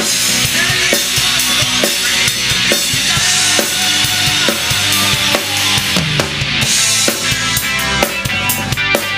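Rock song played by a full band, led by a DW Collector's Series bubinga drum kit keeping a steady beat on bass drum, snare and cymbals. Pitched bass and chord tones come up more strongly in the second half.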